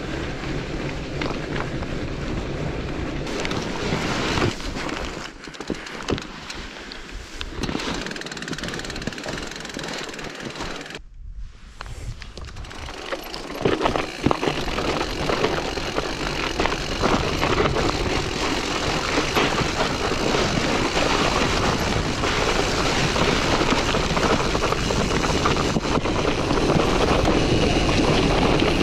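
Steady rushing wind noise on the microphone during a bicycle ride on lake ice, with a brief drop-out about eleven seconds in and a few knocks around fourteen seconds.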